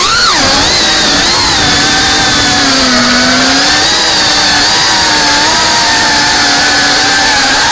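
FPV racing quadcopter's brushless motors and propellers whining loudly. The pitch sweeps up sharply near the start, then dips and rises with the throttle as the drone flies low.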